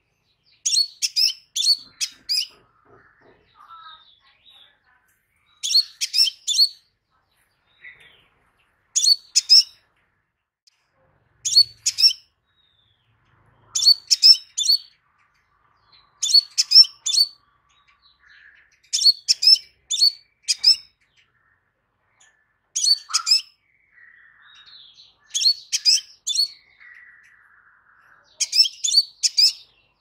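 Crimson sunbird singing: about ten short bursts of three to five sharp, high chirping notes, one burst every two to three seconds.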